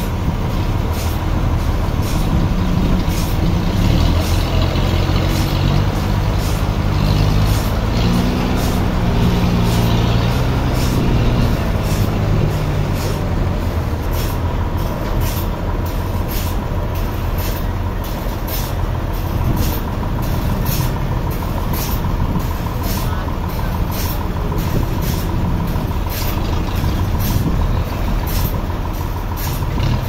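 Toyota 3.5-ton forklift's engine running under load, revving up and down in the first dozen seconds and then running more evenly as it drives off carrying a heavy wooden slab.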